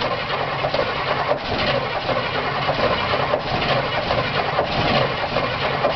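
Plow truck's gasoline engine turning over on the starter, cranking steadily without catching. The owner takes it as the spark plugs being soaked with fuel, a flooded engine.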